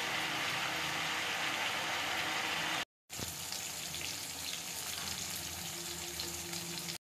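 Oil sizzling in an iron kadai, first with cauliflower and potato pieces frying, then with sliced onions and bay leaves, under a faint steady low hum. About three seconds in, the sound cuts out for a moment and comes back a little quieter.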